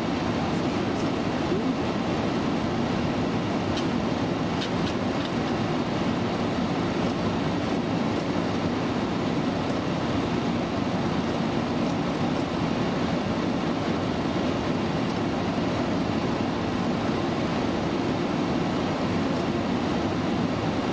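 Steady, even cockpit noise of a Boeing 737 descending on approach, a low rushing of airflow and engine hum with no change in level. A few faint ticks come about four to five seconds in.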